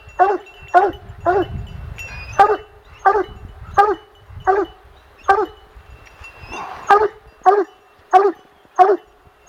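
Plott hound baying on a bear hunt: one dog barking over and over in a steady rhythm, about one bark every half-second to second.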